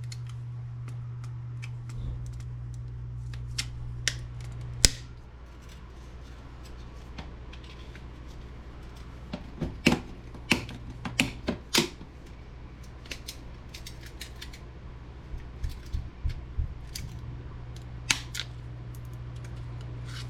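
Scattered sharp clicks and snaps of hand tools and plastic parts as a printer is taken apart, coming in small clusters, over a steady low hum.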